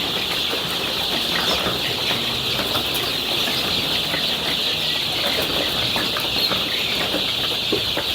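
A large flock of month-old layer chicks cheeping together in a dense, continuous high chorus, with scattered wing flaps. The noise comes from the birds being stirred up.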